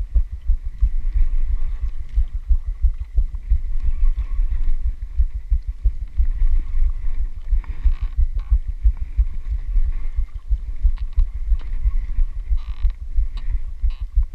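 Boat noise at sea picked up by a body-worn camera: a heavy, uneven low rumble and buffeting, with a faint steady hum above it.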